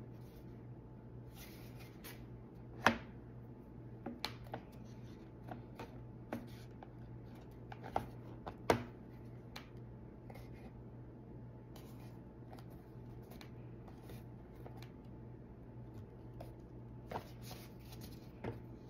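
Scattered light knocks and taps of small glued wooden pieces being handled and pressed together on a work board, over a steady low hum. The sharpest knocks come about three seconds in and twice more around eight to nine seconds.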